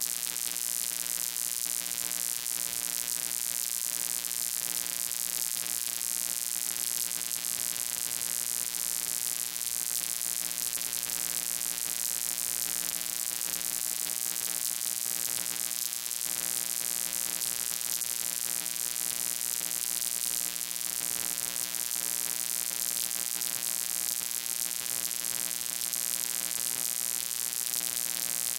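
Steady electrical hum with a buzzy stack of overtones and a loud hiss over it.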